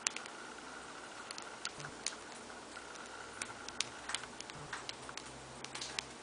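Cockatiel eating pellets: irregular sharp clicks as its beak picks up and cracks the pellets, the loudest right at the start.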